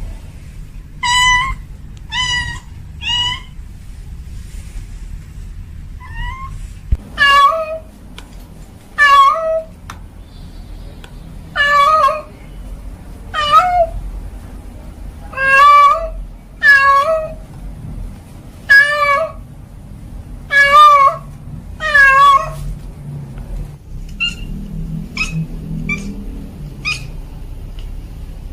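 A cat meowing over and over. Three short meows come near the start, then after a pause about a dozen longer meows that rise and fall in pitch, one to two seconds apart. A few fainter short meows come near the end.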